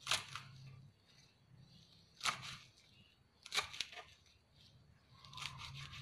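Kitchen knife chopping sawi (mustard greens) on a plastic cutting board: separate sharp cuts about one every second or two, with a quick double cut in the middle and a short run of cuts near the end.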